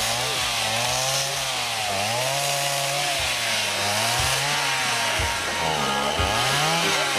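An engine running and revving up and down, its pitch rising and falling every second or two, with a few short knocks.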